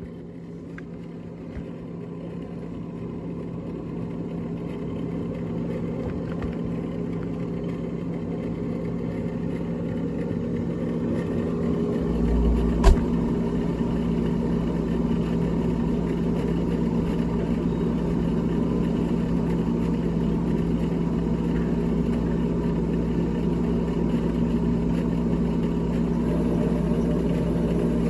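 Steady electric motor hum from a GE refrigerator, growing louder over the first dozen seconds. About 12 seconds in a deeper rumble joins it, with a single sharp click.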